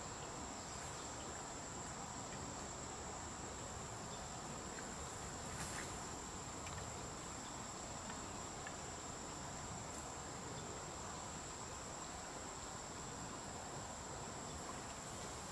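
Insects, crickets or similar, shrilling in one steady high-pitched tone, with a couple of faint clicks.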